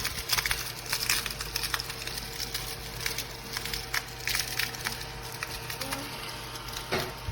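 Small AA-battery mini desktop vacuum running over a countertop, with many irregular small clicks and crackles of crumbs being swept and knocked about under it.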